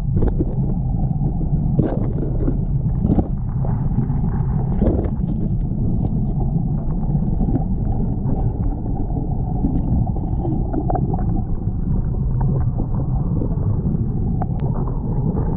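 Steady low rumble of a fast-flowing river current, with scattered small knocks and clicks.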